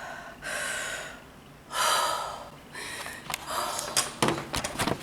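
A woman's loud breaths in and out, three of them, each under a second, followed over the last second and a half by a quick run of sharp clicks and taps.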